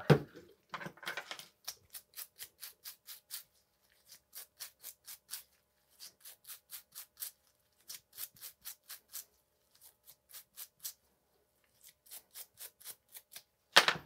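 Small plastic-bristled brush scrubbing a greasy bottom-bracket dust seal. It goes in quick back-and-forth strokes, about five a second, in runs of a second or two with short pauses. A sharp knock comes at the start and again near the end.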